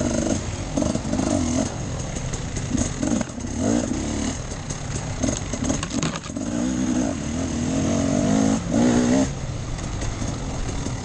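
Enduro motorcycle engine under way off-road, the throttle opening and closing so the revs rise and fall in short bursts, with a longer pull near the end.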